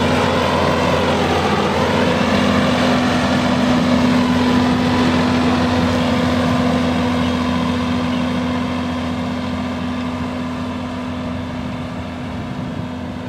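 John Deere 6170R tractor's six-cylinder diesel engine running steadily while ploughing, fading gradually over the second half as it draws away.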